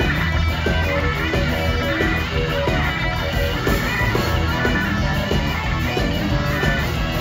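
Live rock band playing an instrumental stretch with guitar to the fore and no singing.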